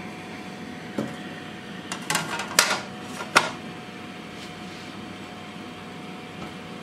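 A few sharp clicks and knocks from a hard 3D-printed plastic part being handled, clustered between about one and three and a half seconds in, over a steady hum with a faint high tone.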